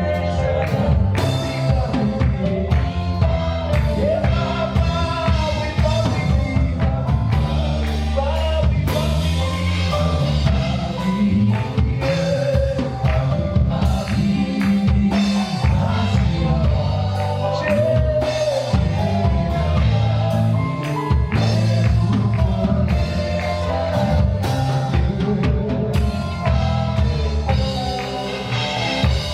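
Live gospel worship music: a band with drum kit and bass backing singers, with steady drum hits under sustained sung lines.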